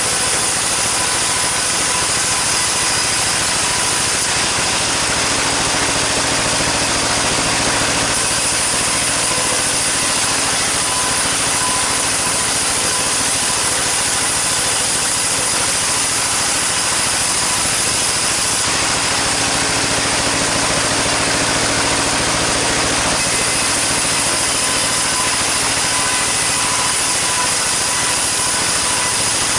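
Sawmill saw running steadily while cutting sengon timber, a constant loud whine and rasp over the hum of its driving motor.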